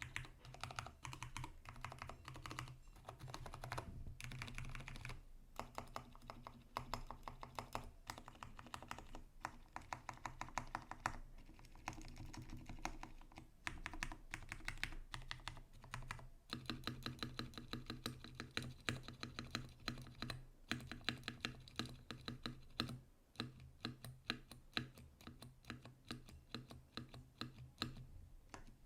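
Typing on a Vortex Tab 60 mechanical keyboard with Cherry MX Brown tactile switches, lightly lubed, in a case with added sound dampening and lubed stabilisers. Rapid keystrokes come in bursts with a few short pauses.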